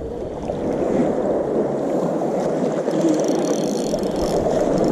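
Water splashing and churning at the surface as a hooked squid is reeled in. The sound swells over the first second and then holds steady.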